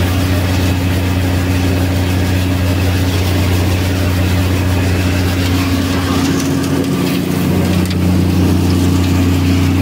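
Tractor-driven thresher running while it threshes mung beans: a steady engine hum with a rushing noise from the machine over it.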